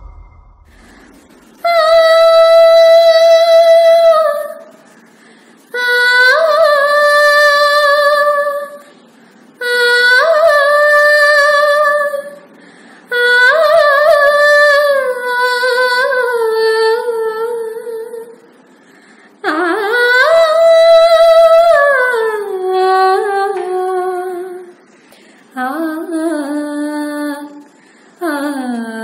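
A woman singing solo and unaccompanied, in slow, long-held phrases with pitch slides and ornaments, each followed by a short pause for breath. The first phrase begins about two seconds in, after a moment's quiet.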